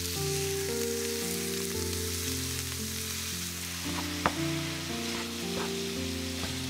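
Ground beef sizzling in hot oil in a frying pan as it is stirred and broken up with a wooden spatula, with one sharp tap about four seconds in. Soft background music with slowly changing chords plays underneath.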